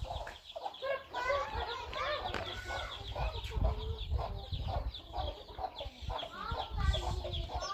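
A hen clucking and her chicks peeping: many short calls overlapping one another, over a low rumble.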